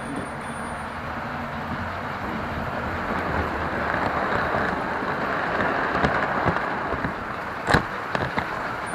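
Model train running on its track with the microphone riding aboard: a steady rolling rush of wheels and motor, a little louder midway, with a few sharp clicks near the end.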